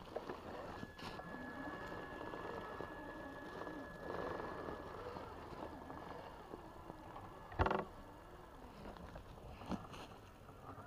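Electric RC scale crawler crawling through grass and undergrowth: its motor and drivetrain whine at a steady pitch over the rustle of tyres in the grass, with a few sharp clicks of twigs. About two-thirds of the way through comes a short, louder pitched burst.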